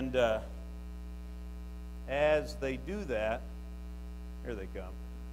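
Steady electrical mains hum, a low even drone, under a man's voice saying a few short phrases through the microphones.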